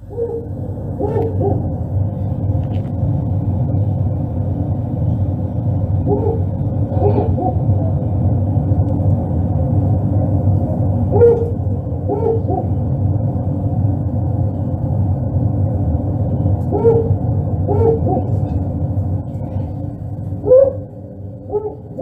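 Cape eagle-owl hooting: short hoots in pairs or threes about every five seconds, over a steady low rumble.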